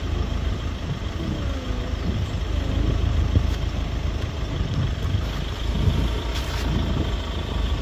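A vehicle engine idling with a steady low rumble.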